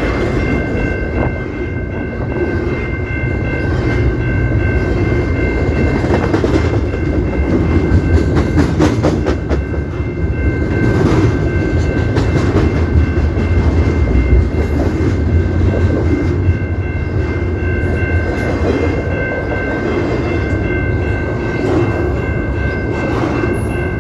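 CP Rail train rolling past with a steady low rumble and wheels clacking over rail joints, loudest around the middle. Thin steady high-pitched tones ring on throughout.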